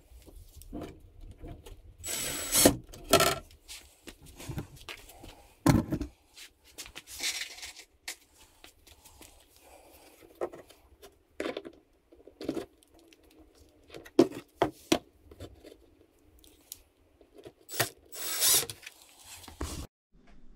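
Short bursts of a DeWalt 20V cordless driver running screws into a pressed-wood crossbar of a wooden workbench. Scattered knocks and clatter of wooden parts being handled fall between the bursts.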